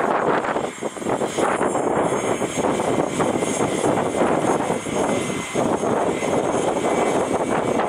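Embraer Praetor 600 business jet's twin turbofan engines, a steady, loud rushing noise.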